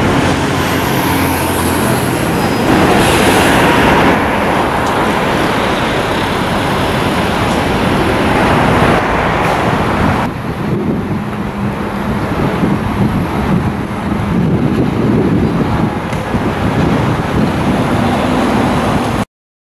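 Road traffic: a city bus and passing vehicles running at a roadside bus stop, then quieter traffic at a road junction from about ten seconds in. The sound cuts off abruptly near the end.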